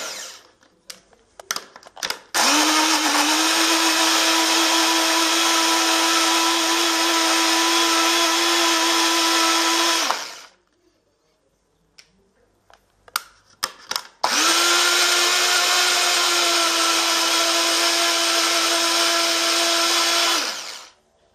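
Ikohs ABDA Slim 230 W portable blender blending mango pieces, run by pressing the cup down onto the base. The motor spins up quickly to a steady high whine, runs for about eight seconds, stops, then runs again for about six seconds and winds down. A few clicks and knocks come between the runs.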